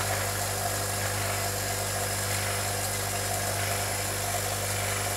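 Electric refrigeration vacuum pump running steadily with a constant deep hum, left running so its oil gets hot before an oil change.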